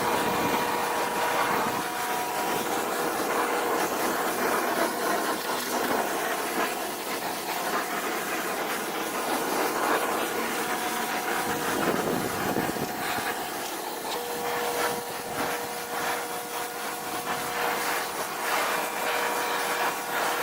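Greenworks electric pressure washer spraying a jet of water onto a wooden deck: a steady hiss of spray, with a motor whine that drops out for a few seconds and comes back.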